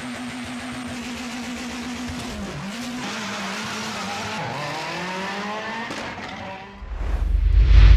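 A car engine accelerating hard through the gears. Its note climbs and drops sharply at two gear changes, about two and a half and four and a half seconds in, then a loud low rumble comes in near the end.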